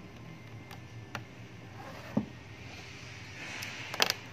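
Handling noise from a laptop and a USB cable: a few light taps, a dull knock about two seconds in, then a brief rustle ending in a quick cluster of sharp clicks near the end.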